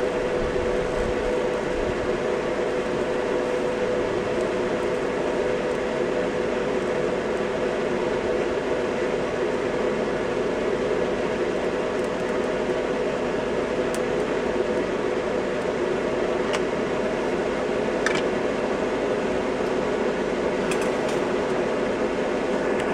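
A steady mechanical hum with a constant tone, unbroken throughout, with a few faint clicks.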